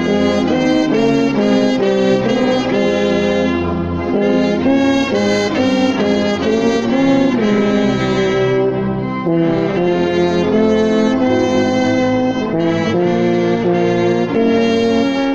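Slow instrumental church music: sustained, brass-like chords over a steady bass, moving to a new chord every second or so.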